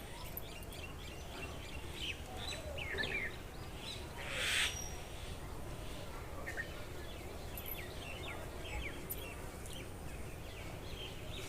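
Small birds chirping on and off in the background, many short quick calls, with a short hissing noise about four seconds in.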